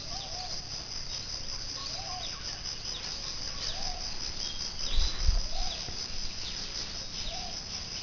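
Early-morning insect chorus: a steady high-pitched shrill, with a short low call repeating about every two seconds and faint higher chirps over it. A brief low thump about five seconds in.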